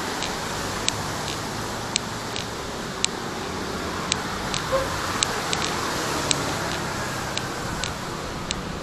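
Walking footsteps on a concrete sidewalk, sharp clicks at an even pace of about two a second, over a steady hiss of city traffic.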